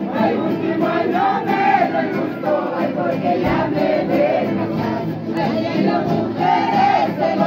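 A crowd of revellers singing San Juanes festival music together over guitars, many voices at once with no break.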